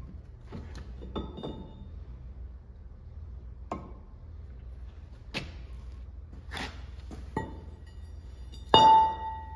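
Light metallic clinks and knocks as the steel planetary ring gear and hub parts of a Ford TW25 tractor's front axle are handled and lifted off the hub. Near the end comes one loud clang of heavy steel that rings on for about a second.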